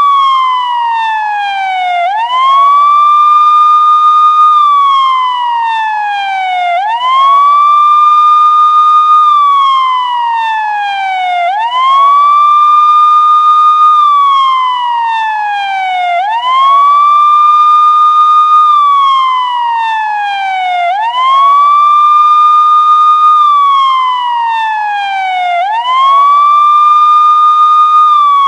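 Police siren wailing in a slow repeating cycle. The pitch sweeps up quickly, holds high for about two seconds, then slides slowly back down, starting over roughly every four and a half seconds.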